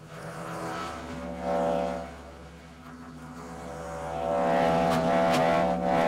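Big Bear BBC72 wood chipper's V-twin gas engine running steadily. From about four seconds in it gets much louder as the chipper grinds and cracks through hard oak limbs fed into the chute.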